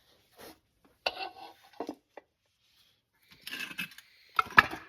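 Metal parts being handled: scattered clinks, scrapes and rubbing, with a couple of sharp knocks near the end as the loudest sounds.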